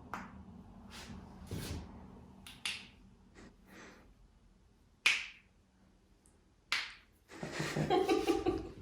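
Finger and thumb joints cracking as they are manipulated: a few sharp pops, the loudest about five seconds in and another a second and a half later.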